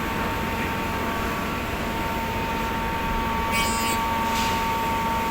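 EMA automatic leather-cutting machine running: a steady mechanical noise with a held hum. A brief rasp comes about three and a half seconds in.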